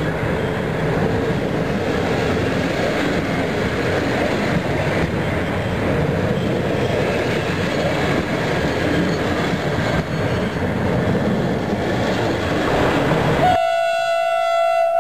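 Double-deck passenger coaches rolling past close by, a steady rumble of wheels on rail. About thirteen seconds in this gives way abruptly to one steady, held horn note from an approaching CFR class 41 electric locomotive.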